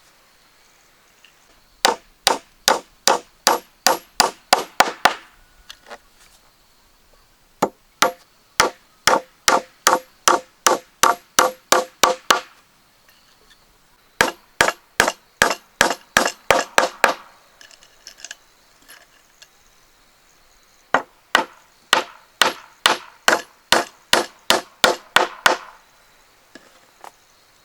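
Rapid blows of a hand tool on wood, about four a second, in four runs of a few seconds each with short pauses between.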